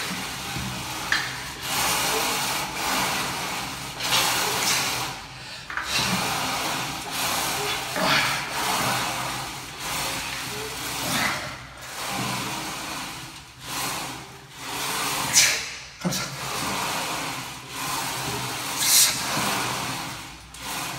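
A man's forceful, hissing breaths as he strains through barbell bench press reps, one hard breath out about every two seconds.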